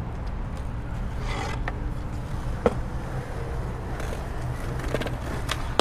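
Skateboard wheels rolling over concrete with a steady low rumble and a few light clicks from the board, then a sharp crack of the board hitting the concrete near the end as the rider goes for a trick.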